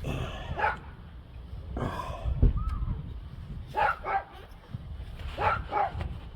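A dog barking, four separate barks a second or two apart.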